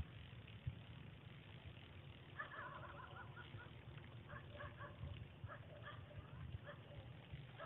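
Faint bird calls: runs of short repeated notes starting about two and a half seconds in and coming on and off, over a low steady rumble.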